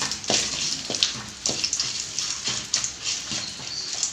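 Dried red chillies, urad dal and tamarind frying in hot oil in a kadai: an irregular crackling sizzle, with a spatula stirring and scraping against the pan several times.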